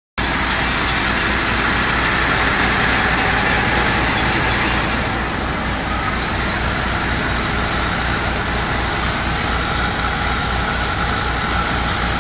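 Drilling rig machinery running at spud-in, the start of drilling a new well: a loud, steady mechanical din with a fast, even low throb.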